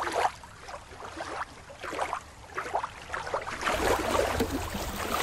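Shallow water lapping and splashing at a rocky shore. It is softer through the first few seconds and gets busier and louder from about four seconds in.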